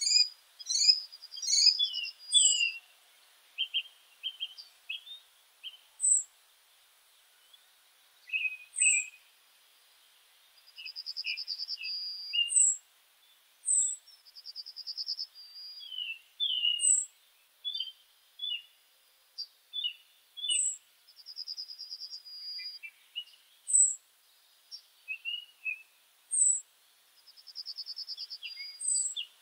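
Small birds chirping and singing: short high chirps every couple of seconds, mixed with several buzzy trills about a second long.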